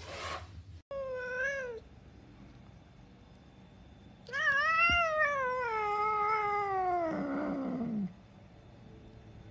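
Domestic cat hissing briefly, then giving a short meow about a second in. A few seconds later comes a long, loud, drawn-out yowl that falls steadily in pitch and turns to a rough growl near its end.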